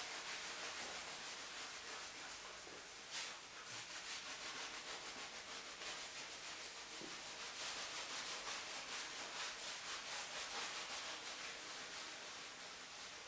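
A small cloth dampened with turpentine rubbing back and forth over the painted surface of a canvas, wiping excess oil paint off a dry underlayer: a continuous run of quick scrubbing strokes.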